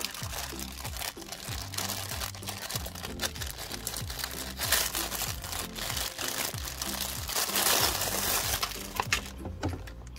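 Clear plastic packaging bag crinkling as it is pulled off a mini rotary tool, loudest about halfway through and dying down near the end. Background music with a steady beat plays throughout.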